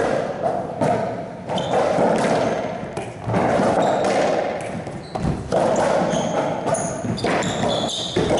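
Racquetball rally: a series of hard racquet-and-ball hits and ball strikes off the walls, each ringing out in the echo of the enclosed court, about one to two seconds apart. Short high sneaker squeaks on the court floor come in near the end.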